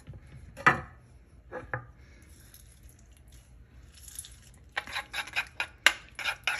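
A few knocks of a knife and lime halves on a wooden chopping board, then a quiet stretch while lime juice is squeezed into a bowl. Near the end a metal spoon stirs herb dressing in a small ceramic bowl, a quick run of clinks and scrapes several times a second.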